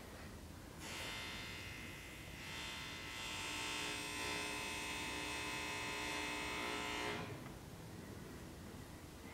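A steady electric buzz like a small motor. It starts about a second in, grows louder partway through and cuts off about two seconds before the end.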